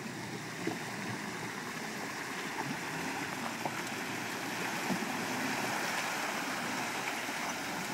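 Steady rush and slosh of water around a Jeep as it is towed out of a flooded crossing where it was stuck.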